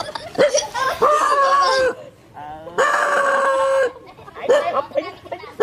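Animal calls: long, loud, level-pitched calls of about a second each, about every two seconds, with shorter calls in between.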